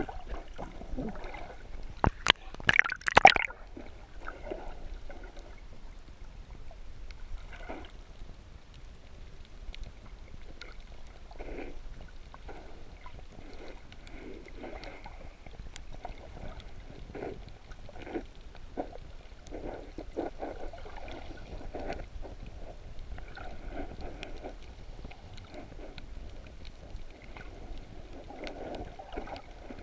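Muffled underwater ambience heard through a submerged camera: water sloshing and gurgling with irregular soft surges, and a brief cluster of sharp clicks and knocks about two to three seconds in.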